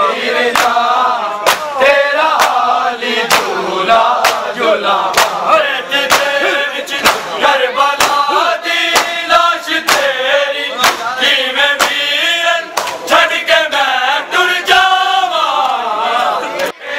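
Men chanting a Muharram lament in unison, with sharp chest slaps of matam on a steady beat, about three slaps every two seconds.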